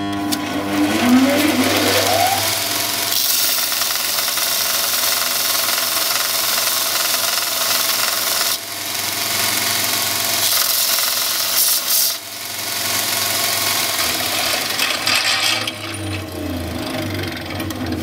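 Ryobi Grind Force 6500 bench grinder's belt sander spinning up with a rising whine, then a brass padlock body ground against the running abrasive belt to sand the resealed seam flush. The sanding noise is steady, breaks off briefly twice, and fades near the end.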